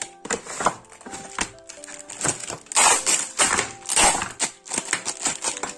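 Cardboard box and plastic packaging being opened and handled: a quick run of clicks, snaps and crinkles, over background music.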